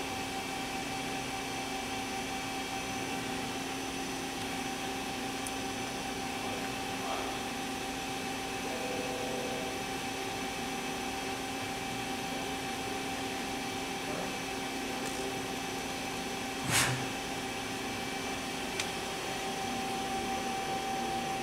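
KIWA KNH-426X horizontal machining center running idle under power: a steady mechanical hum with a constant whine. A single short, sharp noise about 17 seconds in, then a faint click.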